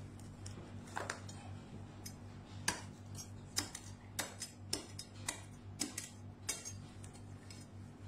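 A large knife chopping into a durian's thick spiny husk to split it open: about nine sharp knocks, roughly half a second to a second apart, over a low steady hum.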